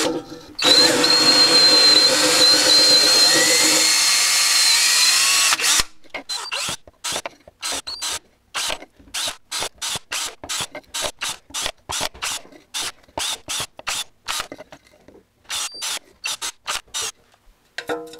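Cordless drill running for about six seconds with a steady high whine, then a quick series of short trigger bursts, about two a second, as holes are drilled one after another into a black plastic pipe to make a perforated sleeve over the sink's drain.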